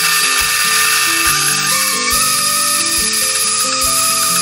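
Blendtec high-speed blender running on its Whole Juice cycle, blending a runny herb sauce: a loud, steady motor whine whose pitch steps up slightly about halfway through, cutting off at the end. Background music with a steady beat plays under it.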